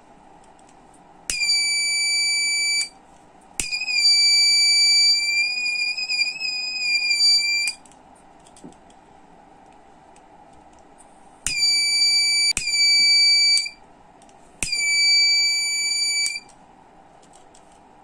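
Buzzer on a homemade IRFZ44N MOSFET flame-detector circuit sounding a steady high-pitched tone in about five bursts of one to four seconds. Each burst starts with the click of a lighter being struck: the IR photodiode senses the flame and sets off the alarm, which stops when the flame goes out.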